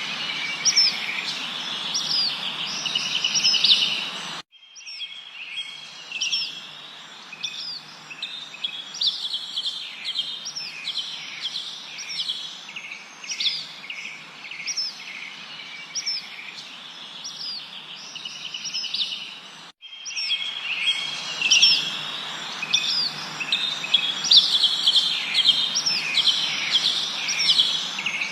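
Many small birds chirping and calling together: a dense chorus of short, high chirps and quick up-and-down notes over a steady background hiss. About four seconds in the chorus abruptly drops to a quieter, sparser stretch, then abruptly comes back louder near twenty seconds in.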